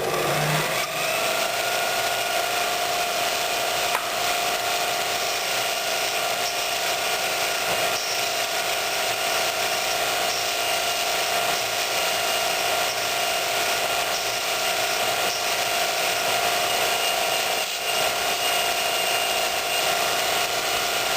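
Bench grinder fitted with a 2x36-inch belt-grinding attachment speeds up over the first second, then runs steadily with a polishing belt, buffing a steel railway spike with compound: a steady whine over belt hiss.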